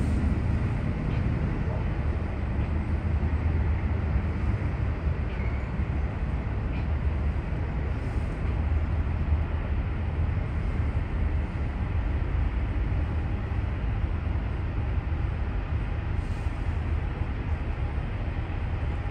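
Steady low rumble and running noise of a vehicle in motion, with a few faint ticks.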